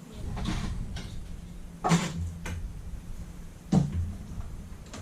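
Knocks and handling noise, typical of cabinet or panel work: two sharp knocks, about two seconds and nearly four seconds in, over a low rumbling.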